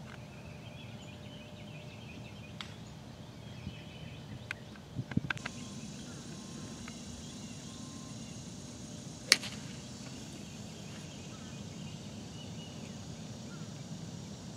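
Golf iron striking the ball: one sharp click a little past nine seconds in, the loudest sound, over a steady low outdoor background, with a few lighter clicks about five seconds in.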